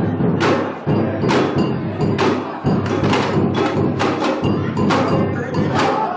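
Samba bateria (Brazilian percussion ensemble) playing a steady groove: dense low drumming under sharp, bright strikes accented roughly once a second.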